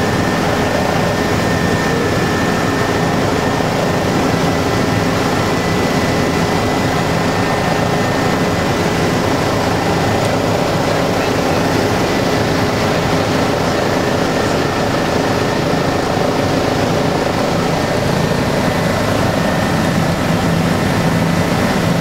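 Helicopter engine and rotors heard from inside the cabin in flight: a loud, steady drone with a few steady whining tones running through it.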